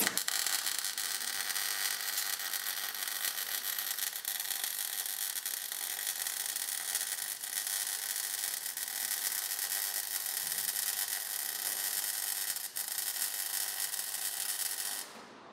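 MIG welding arc laying a bead on steel box tubing: a steady crackling sizzle with spatter, with a momentary break about twelve seconds in, stopping abruptly near the end as the trigger is released.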